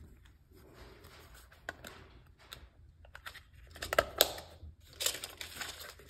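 Faint plastic clicks and rustling from hands handling a plastic RC toy car, fitting its battery door back on. The clicks grow busier and louder about four seconds in.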